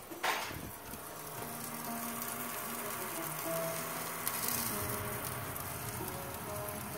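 Salmon fillets sizzling on a hot baking tray under an oven's grill at about 275 °C: a steady hiss.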